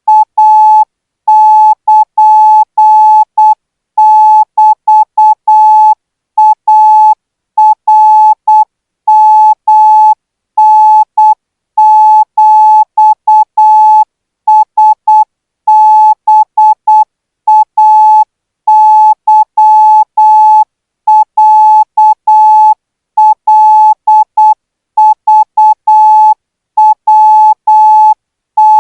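Morse code practice tone sending Thai Morse at 12 words per minute: a single steady beep keyed on and off in short dots and longer dashes, with short gaps between elements and longer gaps between characters.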